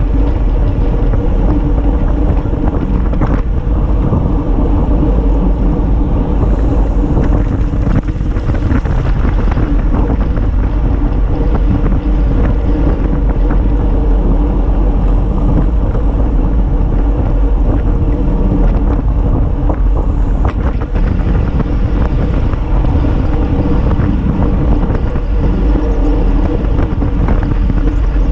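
Steady, loud wind rushing over a handlebar-mounted camera's microphone as a road bike rides at speed, with faint clicks and rattles from the bike on the road surface.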